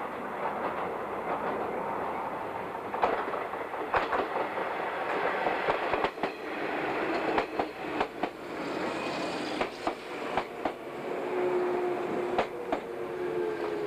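Electric train running on jointed rail: a steady rumble with irregular sharp clicks as the wheels cross the rail joints. About three quarters of the way through, a steady whine comes in and falls slightly in pitch.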